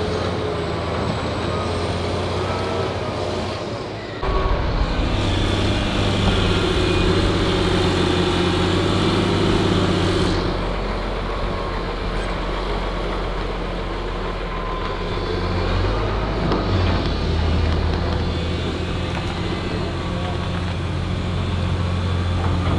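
Heavy diesel engines of a tracked excavator and a crawler dozer running hard as the dozer pulls the stuck excavator on a tow strap. The note steps up in level about four seconds in and shifts again around ten and sixteen seconds.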